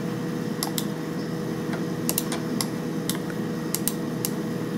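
Sharp, irregular clicks of a computer keyboard and mouse, about a dozen in a few seconds, over a steady low hum.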